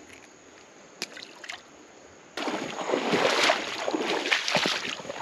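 A few light clicks, then about two seconds in a sudden, loud, irregular sloshing and splashing of shallow creek water that carries on.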